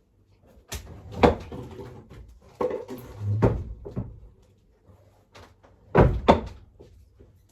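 Handling noise from fitting a mosquito net: several sharp knocks and clatters with rustling between them, two knocks in quick succession about six seconds in.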